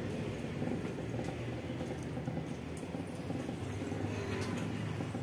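A few faint light clicks of aluminium door profiles and brackets being handled, over a steady low background rumble.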